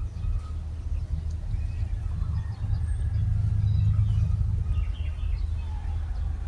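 A steady low rumble, a little louder in the middle, with faint high chirps now and then.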